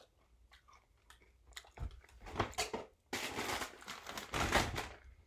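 Packaging being handled and crinkling: scattered light clicks and rustles, then a denser crinkle starting about three seconds in and lasting about two seconds.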